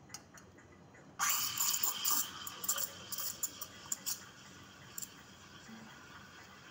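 Espresso machine steam wand opening about a second in and hissing into milk in a stainless steel pitcher: a loud, crackly, sputtering hiss as air is drawn into the milk, easing after about three seconds into a quieter, steady hiss as the milk swirls and heats.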